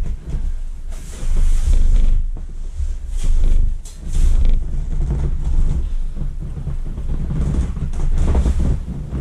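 Gusty wind buffeting the microphone: a deep rumble that swells and drops every second or two, with bursts of hiss.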